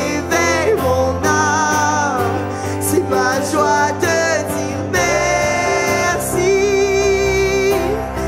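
Live worship music: a woman sings a held, gliding melody into a microphone over a sustained band accompaniment. The backing chords shift about five seconds in.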